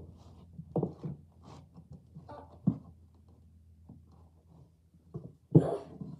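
Books being handled and pulled out of a container: scattered soft knocks and rustling, with one louder thump shortly before the end.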